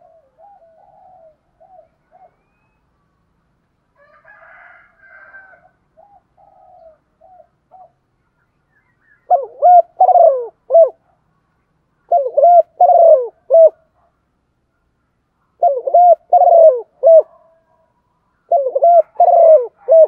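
Female spotted dove cooing: four loud phrases of three or four coos each, about three seconds apart, beginning about nine seconds in, with fainter cooing in the first eight seconds. It is the hen's call, used to set cock birds cooing in reply.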